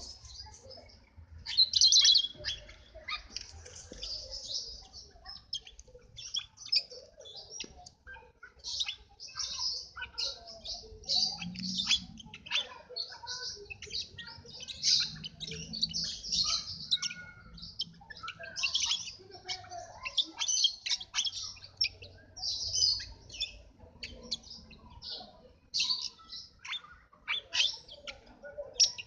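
Small birds chirping continuously, many quick overlapping high chirps and tweets.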